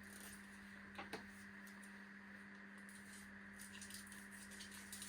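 Near silence: a steady low hum of room tone, with a couple of faint clicks about a second in and light ticking and rustling of small things being handled near the end.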